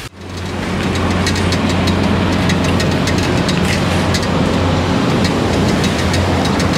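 Bicycle ridden over a rough, potholed dirt road: a continuous rattle and rumble with many small knocks from the bike and its basket, over a steady low hum.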